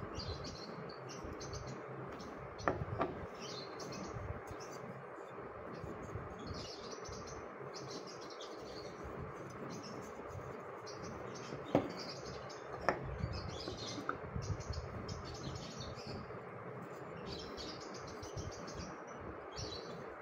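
Birds chirping over and over in the background over a steady hiss, with a few light clicks from the small clay pots being handled, two of them close together about twelve seconds in.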